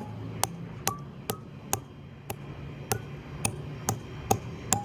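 A hammer strikes steel wedge anchors, driving them into holes drilled in concrete, partway in. The blows come in a steady rhythm of a little over two a second, each with a short metallic ring.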